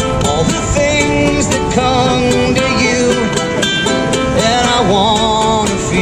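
Live country-style acoustic music: plucked-string accompaniment with a wavering melody line over it.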